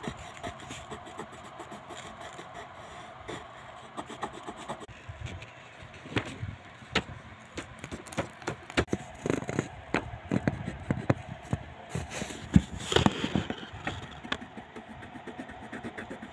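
Coloured pencil scratching on paper in quick, irregular strokes, with taps and rubs, growing busier and louder about halfway through.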